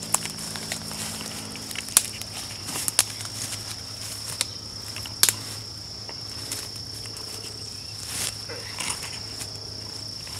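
A steady, unbroken high-pitched insect drone. Over it come scattered sharp crackles of dry leaves and twigs being stepped and knelt on, the loudest about two and five seconds in.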